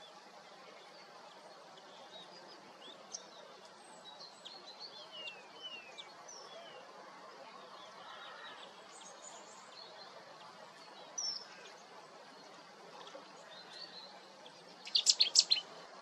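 Quiet outdoor ambience with scattered short, thin, falling chirps of small birds. Near the end comes a quick run of about half a dozen sharp, loud clicks.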